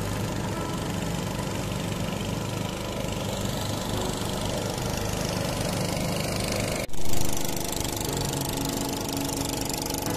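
Small engine of a wooden river longboat running steadily. A sudden loud burst about seven seconds in.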